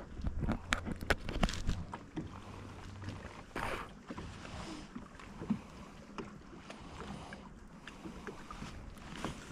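Handling noise aboard a small fishing boat: a low hum and a run of light clicks and knocks over the first three seconds, a brief rush of noise about three and a half seconds in, then only a few faint ticks.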